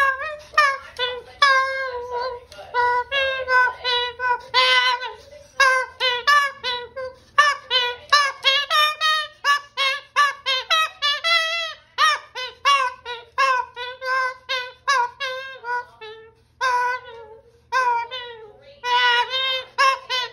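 Moluccan cockatoo singing: a long run of short, warbling pitched syllables, a few a second, broken by brief pauses about five seconds in and again near sixteen seconds.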